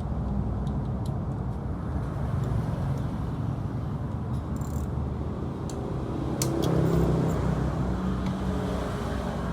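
Motorcycle engine running steadily, with a few light ticks and a brief swell about seven seconds in.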